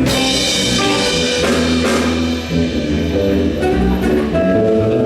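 Live band playing a song during a sound check, with drums, bass and sustained instrument notes; a sharp crash opens it and another comes about two seconds in.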